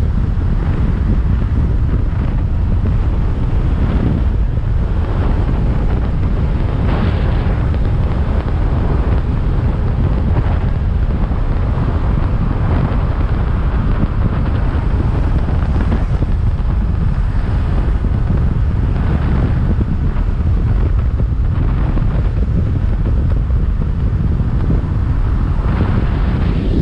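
Heavy wind buffeting on the microphone of a motorcycle riding at speed: a steady, loud low rumble that never lets up.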